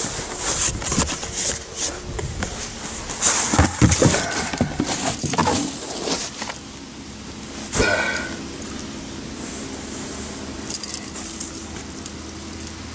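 Rustling, scraping and light clinking as a large military surplus nylon parachute and its bundled suspension lines are pulled out of a cardboard box. The handling noise is busiest in the first six seconds and then thins out.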